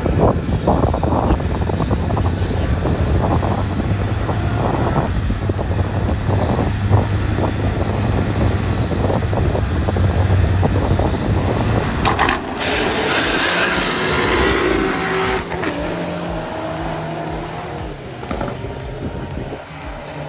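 A loud drag-race car engine running rough with crackles for about twelve seconds. Then a rushing hiss lasts about three seconds, and the engine sound falls away.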